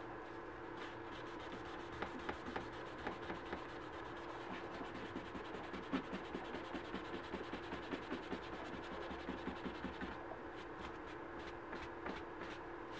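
Dye-soaked pad rubbing leather dye into a small leather key chain over paper towels, in quick rhythmic strokes about three to four a second that stop about ten seconds in. A steady low hum runs underneath.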